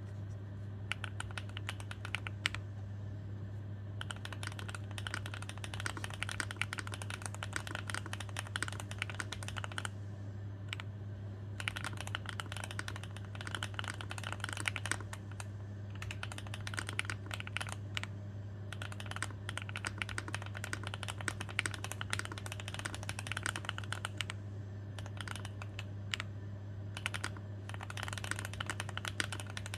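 Typing on a Rainy75 aluminium-cased mechanical keyboard with Gateron Smoothie linear switches: fast runs of keystroke clacks, broken by a few short pauses. A steady low electrical hum runs underneath.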